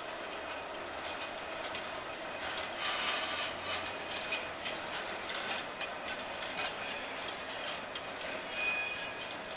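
Wagons of a high output engineering train rolling past on the rails, with many irregular clicks and clanks from wheels and couplings and a brief high squeal near the end.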